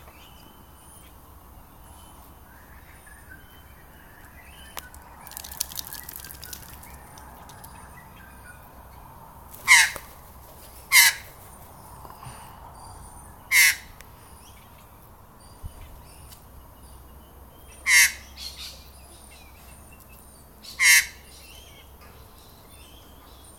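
Harsh, caw-like bird calls: five loud single calls a few seconds apart, with a short rustling noise a few seconds before the first.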